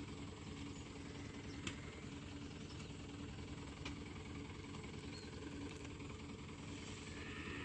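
Dump truck's diesel engine idling steadily, with a few faint clicks.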